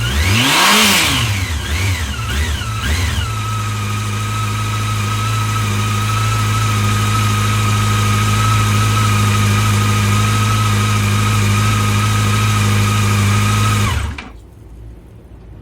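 2018 Yamaha FJR1300's inline-four engine on its stock exhaust: revved once, then blipped a few more times in quick succession, settling to a steady idle. It is switched off near the end and stops suddenly.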